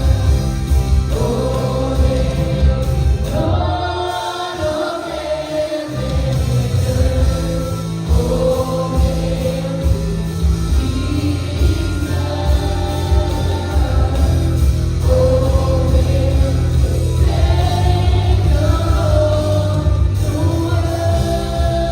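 Live worship band with a group of singers leading a Christian worship song. The bass drops out for about two seconds a few seconds in, then the full band comes back in.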